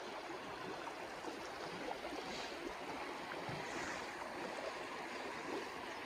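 A steady, even rushing noise with no pauses or distinct events.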